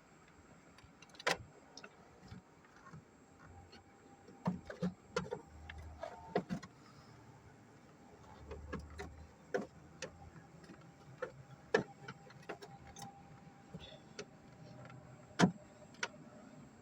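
Irregular clicks, clinks and knocks of hand tools and metal parts being handled while working on a car engine, with a few sharper knocks, the loudest near the end.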